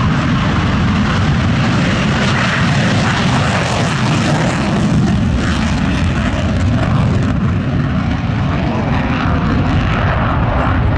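Panavia Tornado taking off on full afterburner: its two RB199 turbofans run loud and steady as it accelerates down the runway and climbs away.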